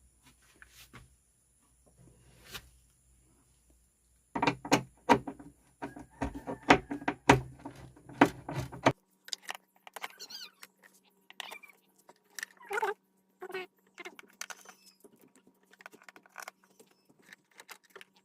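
Handling noises: a dense run of sharp metallic clicks and clatters for about five seconds, then scattered taps and rustles over a faint steady hum.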